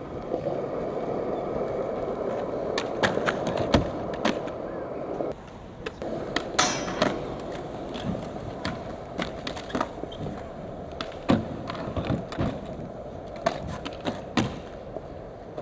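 Skateboard wheels rolling on rough concrete, broken by sharp clacks of boards popping and landing, several of them, loudest about 4 s, 7 s and 11 s in.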